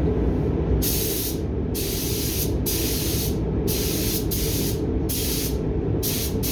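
Paint spray gun spraying in short bursts, about one a second, each a hiss under a second long, over a steady low hum.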